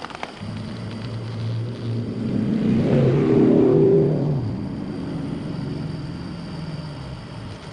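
A passing motor vehicle's engine: a low hum that swells to its loudest about three to four seconds in, then fades away.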